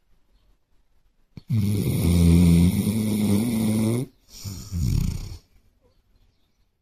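Basset hound snoring in its sleep: one long snore starting about a second and a half in, followed right after by a shorter one.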